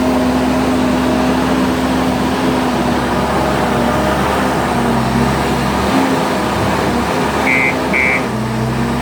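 JCB 155 skid steer loader's diesel engine running under working load, its pitch shifting as the load changes. Near the end come two short high beeps, the start of a repeating reversing alarm.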